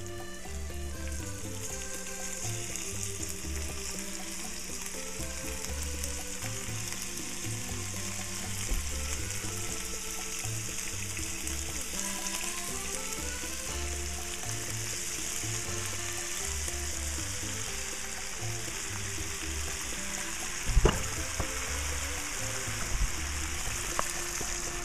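Ground beef and chopped garlic sizzling as they fry in hot oil in a skillet, the hiss building as the meat goes in, over background music with a melody and bass line. A sharp knock about 21 seconds in and a smaller one near the end.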